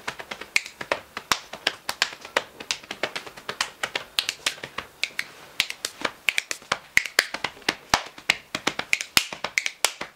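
Body percussion: finger snaps and sharp hand slaps and clicks in a quick, busy rhythm of several strokes a second.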